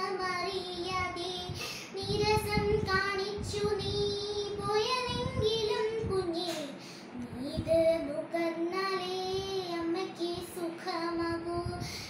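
A girl singing a Malayalam verse solo in a slow melody of long held notes. The pitch dips and falls away about halfway through.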